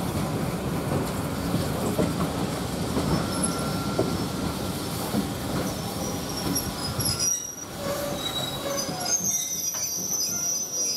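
Railway carriage wheels rumbling over the track as the train runs slowly into the station. In the last few seconds high-pitched wheel and brake squeal sets in as it slows to a stop.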